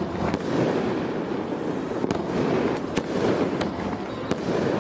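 Fireworks going off: a dense, steady crackle that cuts in abruptly, with sharp cracks scattered through it about once a second.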